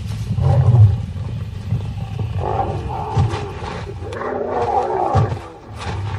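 Lions growling and snarling in a clash between rival prides, in several rough outbursts. The deepest comes in the first second and the longest about four to five seconds in.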